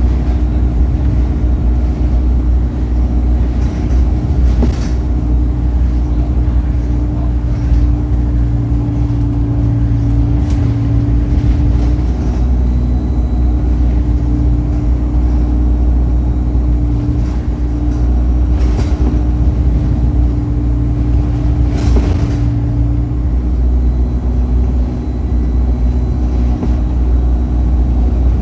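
Bus's diesel engine running under way, a steady low rumble with a thin, high turbocharger whistle over it; the whistle dips briefly about ten seconds in and again near the end. A few short knocks or rattles come through.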